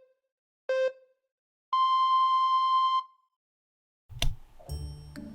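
Electronic countdown beeps: a short beep, then about a second later a long, higher beep lasting over a second. After a short pause there is a sharp hit, and music begins near the end.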